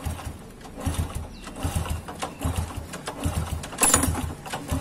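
Honda EX5 Dream's single-cylinder four-stroke engine being kicked over without firing, a group of low thuds a little under every second: it will not catch because there is no fuel reaching it.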